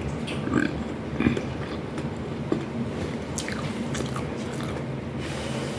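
A person biting and chewing food close to the microphone, with scattered wet smacks and short crisp clicks about once a second, over a steady low hum.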